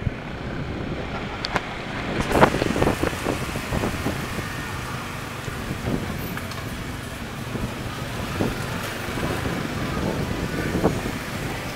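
Wind rushing over the microphone and road noise on the back of a moving motorbike taxi, with street traffic around it. A short run of knocks and rattles comes about two and a half seconds in.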